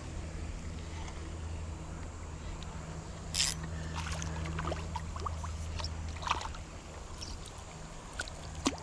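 Creek water sloshing and trickling around wading legs, with a sharp splash about three and a half seconds in and a few smaller splashes after it, over a steady low hum.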